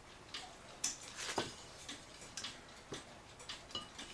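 Faint, irregular clicks and light taps of a Citizen battery cuckoo clock's case and loose movement being handled.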